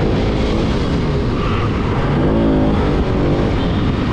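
Motorcycle engine running under way in traffic, with wind rushing over the microphone, and a short rise and fall in pitch about two seconds in.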